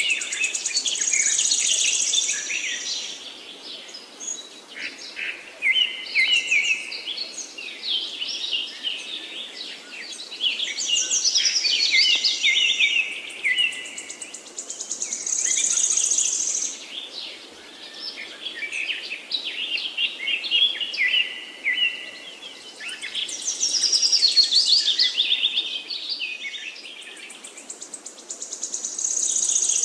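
Birds chirping and trilling in many overlapping high calls that swell and fade every few seconds.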